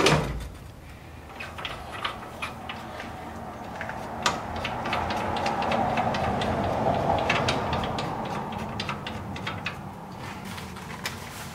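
Scattered metal clicks and knocks as a 1UP USA aluminium add-on bike rack is slid onto a hitch-mounted rack and seated over its clamp bolts. A broad swell of background noise builds from about four seconds in and fades again after several seconds.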